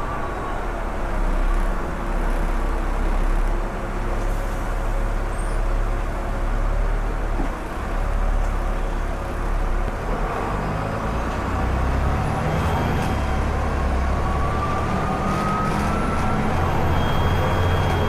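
Volvo B7TL bus's six-cylinder turbodiesel engine running steadily, then from about ten seconds in the engine note strengthens and a turbo whistle rises in pitch as the bus accelerates.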